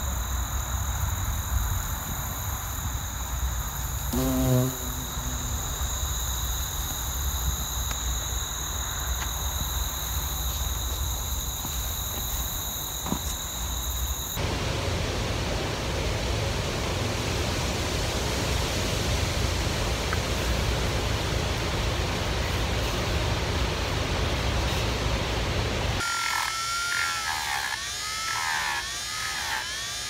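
Steady high-pitched tones over a low rumble, then an even hiss. About four seconds before the end, a handheld rotary tool with a small sanding drum starts sanding the wooden carving, its whine dipping and recovering again and again as it is pressed into the wood.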